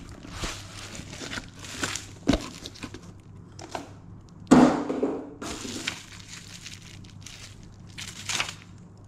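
Bubble wrap and a cardboard mailer being handled, with irregular crinkling, scraping and crackling. There is a single louder thump about halfway through.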